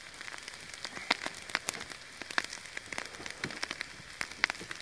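Sausage and potato breakfast hash sizzling on a propane-fired steel discada: a steady frying hiss with many scattered sharp pops and crackles.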